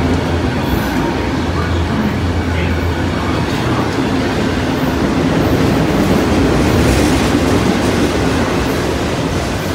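Freight train of autorack cars rolling past close by: a loud, steady rumble of steel wheels on the rails and the rattle of the cars.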